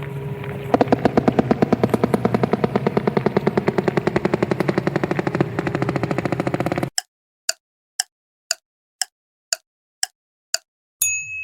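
Sperm whale clicking: first a fast, dense run of clicks over a low hum for about six seconds, then single sharp clicks about two a second. A short chime rings near the end.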